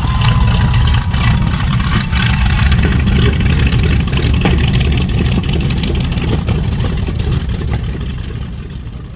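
B-25 Mitchell bomber's two radial engines running as it taxis past: a loud, dense low rumble with a rough crackle over it. The sound gradually fades over the last couple of seconds as the plane moves away.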